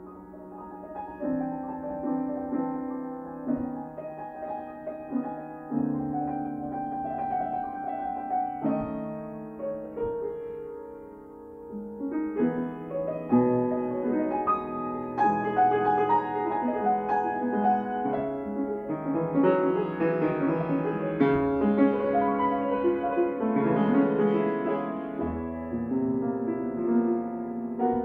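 Grand piano played solo, a softer passage giving way to louder, busier playing a little before halfway through.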